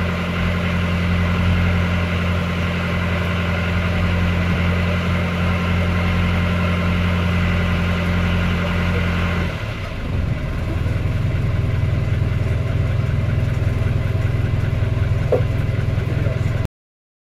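A hire cruiser's inboard diesel engine running steadily. Its note changes about ten seconds in, and it cuts off suddenly near the end.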